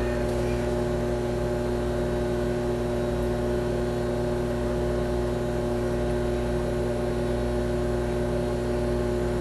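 Steady electrical hum from equipment in the control room: a low drone made of a few fixed tones that does not change in pitch or level.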